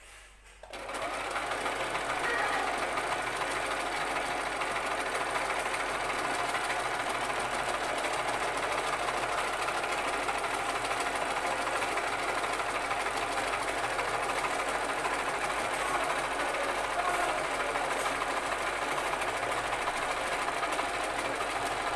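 Sewing machine starting up about a second in, then running steadily at speed.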